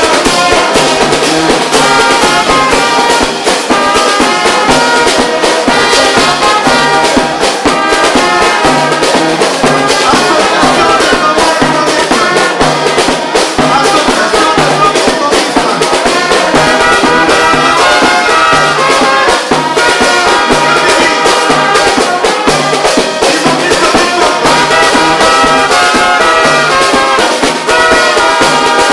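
Brass band playing lively, loud dance music with a steady low beat.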